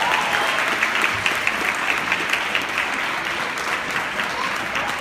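Audience applauding: dense clapping that slowly dies down.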